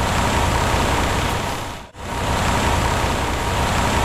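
Truck engine sound effect running steadily, with one brief dropout about halfway.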